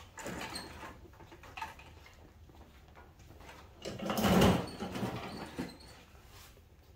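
Rustling and light knocks of a person moving about close to the microphone, with one louder brush of clothing about four seconds in; the miter saw is not running.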